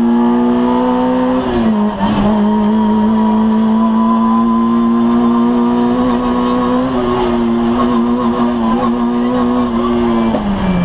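Citroën AX GTI rally car's 1.4-litre four-cylinder engine heard from inside the stripped cabin, running hard at high revs. The pitch dips briefly about a second and a half in, holds nearly steady, then falls near the end as the throttle comes off.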